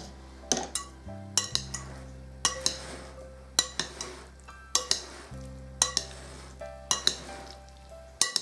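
Metal spoon stirring chopped salad and mayonnaise in a glass bowl, clinking against the glass about once a second, over background music.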